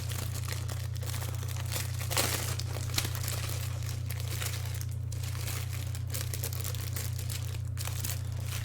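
Packaging crinkling and rustling as a sketchbook is taken up and unwrapped, with a couple of sharper rustles about two and three seconds in. A steady low electrical hum runs underneath.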